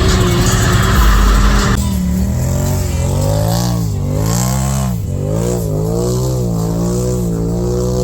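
ATV engine revving, its pitch rising and falling again and again with the throttle. It comes after a louder noisy rumble that cuts off abruptly about two seconds in.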